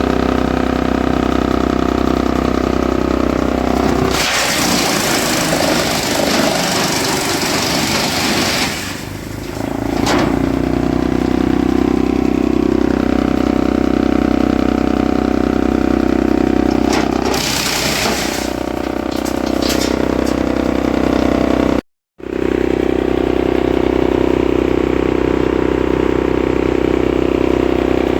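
Engine-driven wood chipper running steadily, with loud grinding, shredding bursts as wood goes through the cutter: a long one about four seconds in and a shorter one near eighteen seconds. The sound drops out for an instant a little after twenty seconds.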